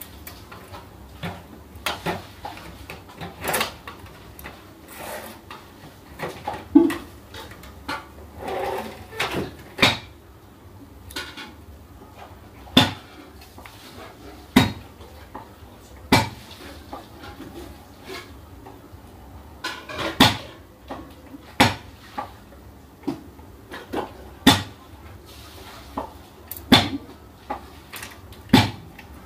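Plastic and sheet-metal parts of an HP LaserJet laser printer knocking and clicking as it is taken apart with a screwdriver. Irregular sharp clicks and knocks, a second or two apart.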